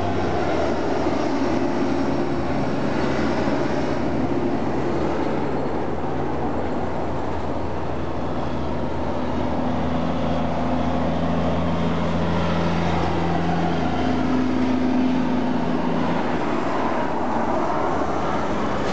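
Heavy diesel road trucks hauling oversize loads pass slowly, giving a steady low engine drone. Its pitch shifts a few times as different trucks go by.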